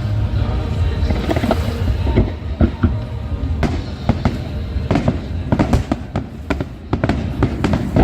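Fireworks display: aerial shells bursting in a quick, uneven string of sharp bangs and cracks over a steady low rumble, coming thicker from about two seconds in.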